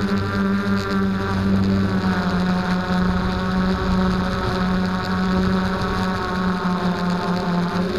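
DJI F330 Flamewheel quadcopter's brushless motors and propellers running at a steady hover, a continuous buzzing whine that wavers slightly in pitch, heard from the onboard camera with a little wind noise.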